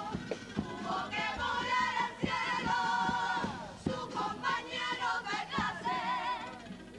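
A Cádiz carnival comparsa singing in chorus, voices in harmony with vibrato, over guitar and drum accompaniment with regular drum hits.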